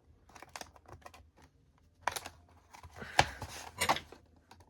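Hands opening a plastic toy package: scattered light clicks and crinkling. Sharper snaps come about two seconds in and twice more near the end.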